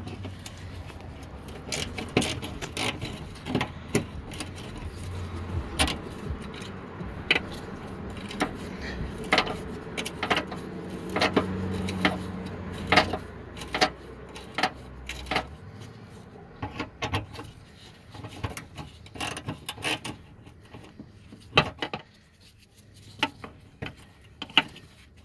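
Socket ratchet with an 8 mm socket clicking in irregular bursts while fender bolts are undone, with small metallic clinks of the tool and bolts, over a low hum that fades out about two-thirds of the way through.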